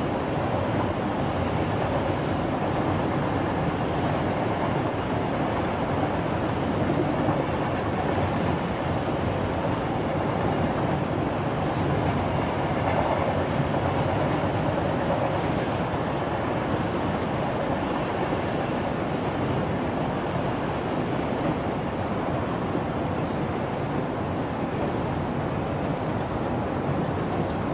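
Train running on the rails: a steady, unbroken clatter and rumble of wheels on track.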